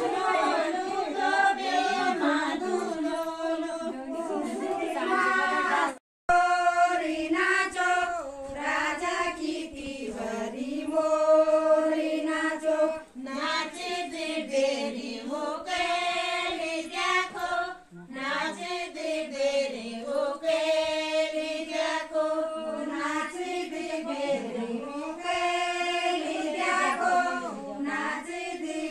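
A group of women singing a thadya folk song of Uttarakhand together, unaccompanied by instruments. The sound cuts out completely for an instant about six seconds in.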